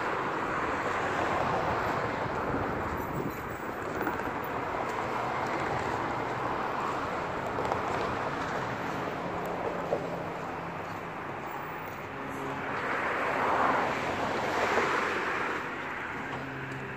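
Street traffic noise: a steady wash of passing cars, swelling louder about thirteen seconds in as a vehicle goes by.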